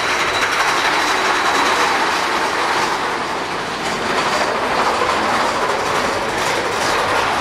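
Mine-train roller coaster cars rattling and clacking steadily along the track.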